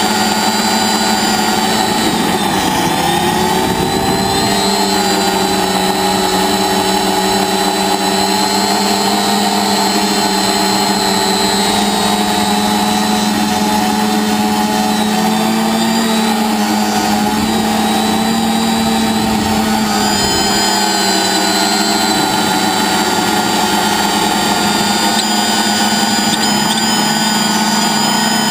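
TBS Discovery quadcopter's electric motors and propellers whining steadily, the pitch shifting slightly up and down a few times as the throttle changes in flight.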